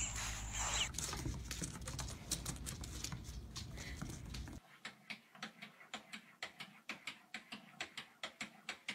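A low hum in the first second gives way to a cat's paws scrabbling and tapping on a wooden tabletop. About four and a half seconds in, a cat's paws pat a mirror in a run of sharp taps, two to three a second.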